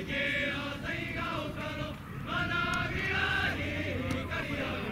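A group of high-school rugby players, mostly young male voices, singing their school song together in unison, with held notes.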